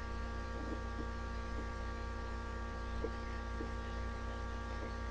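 Steady electrical mains hum with a stack of buzzing overtones, and a few faint soft ticks over it.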